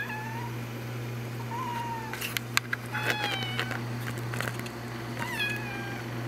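A kitten meowing: about four short, high-pitched meows spaced a second or two apart, over a steady low hum.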